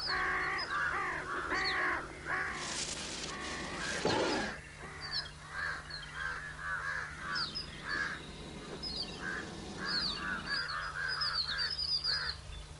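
Crows cawing again and again, with higher chirps from smaller birds among them, and a brief rushing hiss about three seconds in.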